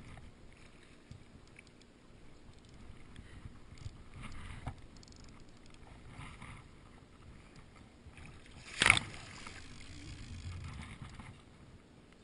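Water sloshing around a float tube, with rustling handling noise from a spinning rod and reel being worked against a hooked fish. A single sharp, loud knock comes about nine seconds in.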